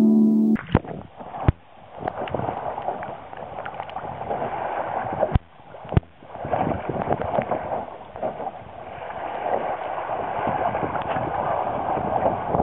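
Water rushing and gurgling along the hull of a small sailing boat, a light trow, under way on a broad reach. A few sharp knocks come in the first six seconds.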